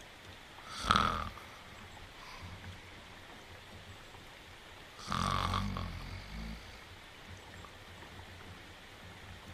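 Cartoon dog snoring in its sleep: two snores about four seconds apart, the first short and sharp, the second longer and lower. Steady rain runs underneath.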